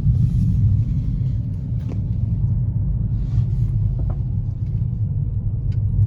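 Steady low rumble of a 2020 Toyota Corolla hatchback, its 2.0-litre four-cylinder engine and tyres on a snowy road, while driving, with a couple of faint ticks about two and four seconds in.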